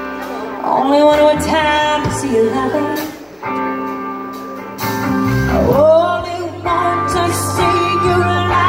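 Live concert audio of a woman singing a slow ballad with a band: long held sung notes that glide up into each phrase, over steady sustained guitar chords.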